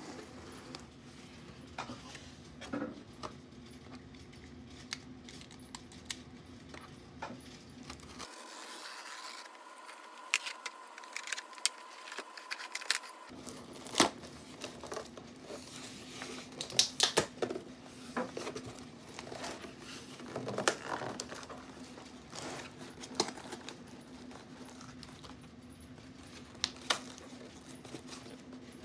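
A long cardboard shipping box being opened by hand: tape and cardboard tearing, flaps pulled open, with scattered clicks, taps and scrapes that come thicker in the second half. A steady low hum runs underneath.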